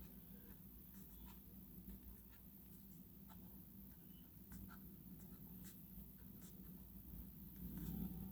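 Penhouse M5BS metal click ballpoint pen, fitted with a slim Jotter-type refill, writing on paper: faint, smooth scratching with scattered light ticks of the tip on the page.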